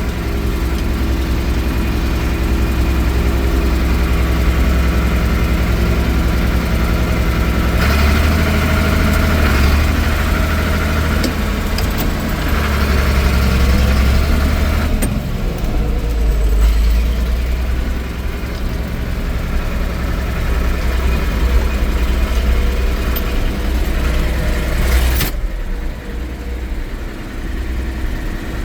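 John Deere 2950 tractor's six-cylinder diesel engine running on a test drive, heard from the operator's seat. Its note changes about eight seconds in and again around fifteen, and the higher part of the sound drops away sharply about twenty-five seconds in.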